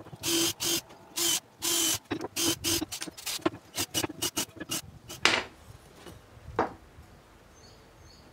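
Cordless drill run in short trigger bursts, boring holes into pine boards, the bursts getting shorter and quicker after about two seconds. Then a sharp wooden knock a little past halfway and a softer one a second later.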